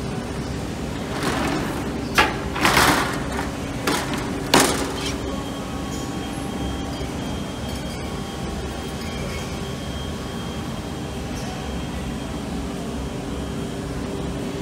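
A CNC multi-boring machine releasing a drilled panel onto its roller outfeed: several short hissing bursts and knocks in the first five seconds, then a steady machine hum with a faint whine.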